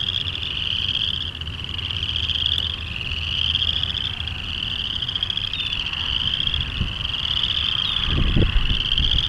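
A chorus of frogs trilling: overlapping pulsed trills, each about a second long and rising slightly, following one another without a break. A low rumble sits underneath and swells briefly near the end.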